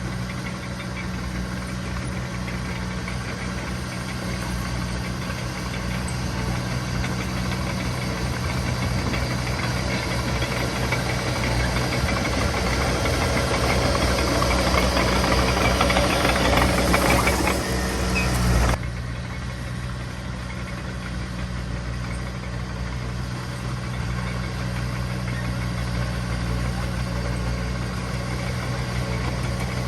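Diesel engine of a heavy earthmoving machine running steadily. A rushing noise builds over the middle and cuts off suddenly about two-thirds of the way through.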